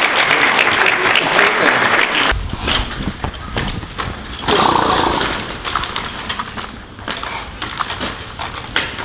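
Applause for about the first two seconds. Then the puppeteers of the life-size horse puppet voice horse breaths and blows, the loudest about five seconds in, over scattered knocks of the puppet's hooves and frame.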